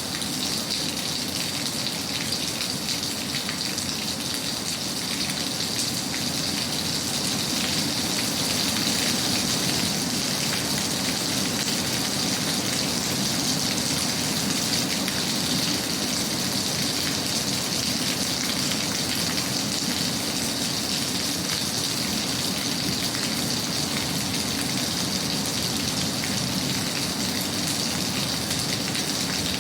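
Rain ambience: steady rain falling on a surface, an even continuous hiss with no breaks.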